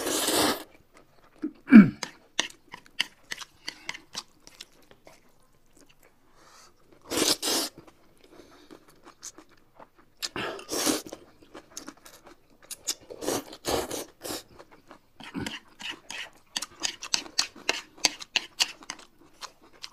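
Close-miked eating: noodles slurped in several long noisy pulls, with wet chewing and smacking and quick light clicks of chopsticks and a spoon in between. About two seconds in comes a short, loud, low sound that drops in pitch.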